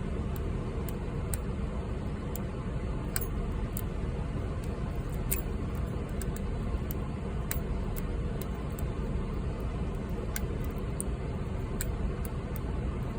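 Small, sharp metal clicks at irregular intervals as a lock pick hook and tension wrench work the pins of a 38mm Ace padlock with security spool pins. A steady low rumble runs underneath and is louder than the clicks.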